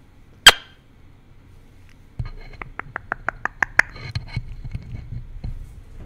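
Eclectus parrot's beak against a microphone: one sharp, loud tap about half a second in, then from about two seconds a quick, even run of small clicks, about seven a second, over a low rumble as the beak works at the mic's grille, with scattered clicks after.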